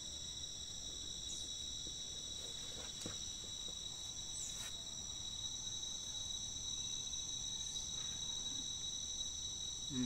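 Steady chorus of insects, several shrill high tones held without a break, with a few faint clicks here and there.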